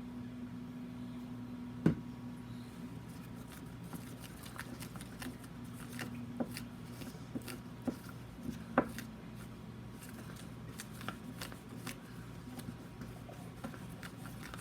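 Shampoo-and-cornstarch slime mixture being worked by hand, giving soft irregular clicks and crackles, with a sharp knock about two seconds in and another near nine seconds. A steady low hum runs underneath.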